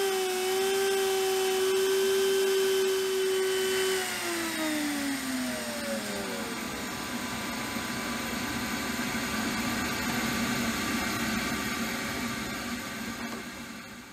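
Trim router spindle on a Shapeoko Pro CNC running at a steady high-pitched whine, then switched off about four seconds in and spinning down with a falling pitch. A steady rush of dust extraction air carries on through the hose after that, and fades out near the end.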